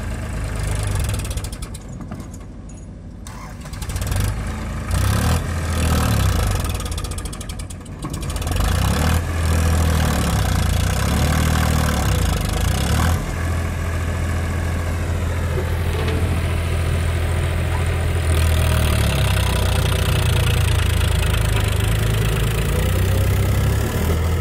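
Diesel engines of a Powertrac farm tractor and a JCB backhoe loader running. The tractor is working as it turns and pulls a trolley loaded with soil. The engine sound dips briefly early on, then grows louder and holds steady from about eight seconds in.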